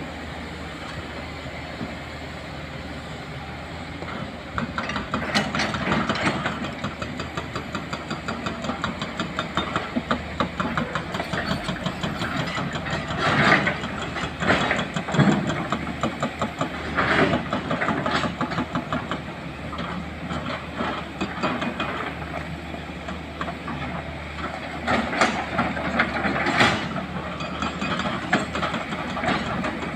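Diesel excavator engine running while a hydraulic rock breaker hammers rock, a fast steady run of blows starting about four seconds in, with louder bursts now and then.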